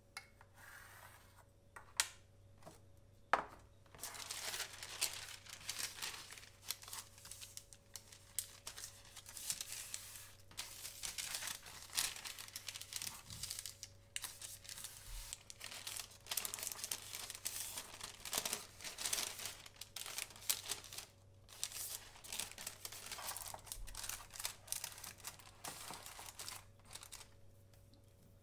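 A sheet of cooking parchment rustling and crinkling as it is folded, creased and fitted into a square stainless steel mold, almost without a break after a few light clicks in the first few seconds.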